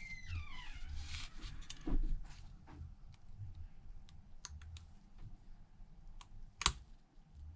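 Light clicks and taps of small metal tools and phone parts being handled during iPhone reassembly, one sharper click a little before the end. Near the start, a brief high squeak that falls in pitch.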